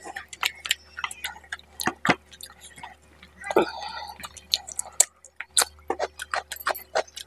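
Close-up mukbang eating sounds: wet chewing of fish head curry and rice, with irregular sharp mouth clicks and lip smacks and a longer wet stretch about halfway through.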